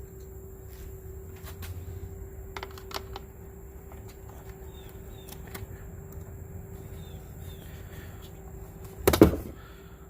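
Flathead screwdriver working a hose clamp off the air intake: faint, scattered clicks and ticks, then one loud clunk about nine seconds in.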